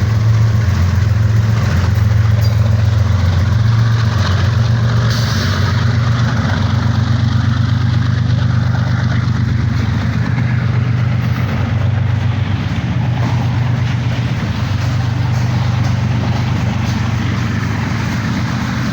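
BNSF GE ES44AC locomotives' diesel engines idling on a stopped coal train: a steady low hum.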